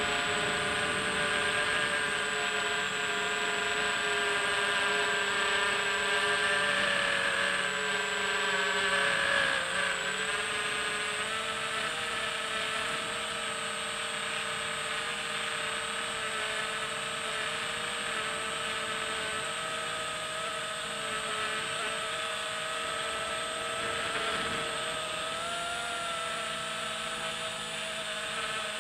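Multirotor drone's electric motors and propellers whining steadily, heard from the camera on board, several tones over a hiss; the pitch wavers a little as the throttle changes, and it gets slightly quieter about ten seconds in.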